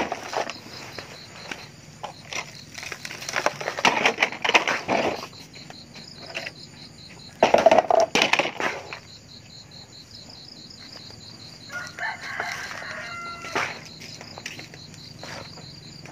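Plastic hand shovel scraping up dry dirt and pouring it into a plastic toy dump truck's bed, in two bouts about 3 and 7.5 seconds in. A rooster crows about 12 seconds in, over a steady high insect buzz.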